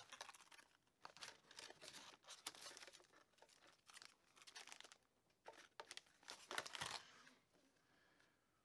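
Faint crinkling of plastic lure packaging being handled and pulled from a box, in quick irregular crackles that die away about seven seconds in.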